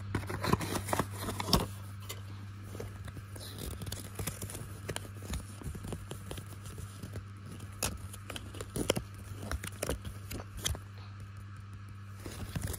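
Cardboard packaging and a folded paper leaflet handled and unfolded: irregular crinkling and rustling with sharp crackles, loudest in the first two seconds. A steady low hum runs underneath.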